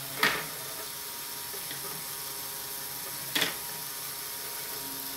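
A LEGO Technic Power Functions motor turning its gear train with a steady whir, while the plastic figure on its rod flips over and clatters onto the table twice, about three seconds apart.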